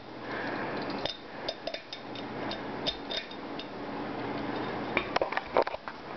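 Harbor Breeze five-blade ceiling fan running with a soft, steady rush of air. Light clinks and clicks are scattered through it, and a quick cluster of sharper clicks comes about five seconds in.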